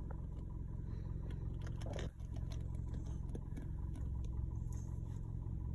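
A steady low engine hum, like a vehicle idling, with a brief noise about two seconds in.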